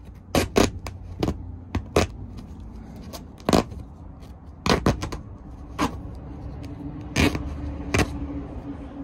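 A folding knife slicing through taut tent canvas to cut a stove-jack hole: about a dozen short, sharp cutting snaps at uneven intervals over a low rumble.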